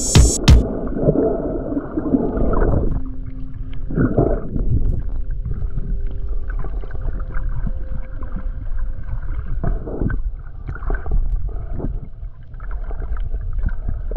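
Muffled underwater sound from an action camera in its waterproof housing: low rumble and water sloshing with occasional knocks. A faint steady hum comes in about three seconds in and fades a few seconds later.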